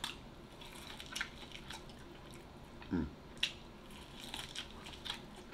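A person biting and chewing food close to the microphone: scattered small wet clicks and smacks, with a short falling hum of the voice about three seconds in.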